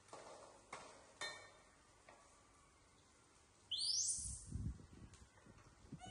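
A few light metallic clinks of a ladle against a steel wok in the first second or so, then a short high-pitched rising squeal from a young macaque about two-thirds of the way in, followed by soft low rustling.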